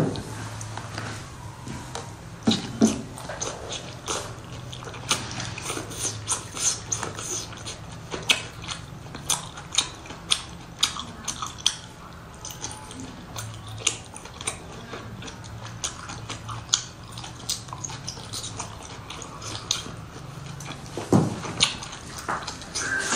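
A person biting and chewing cooked octopus tentacles close to the microphone: many short, wet, sharp mouth clicks and smacks, scattered irregularly, over a low steady hum.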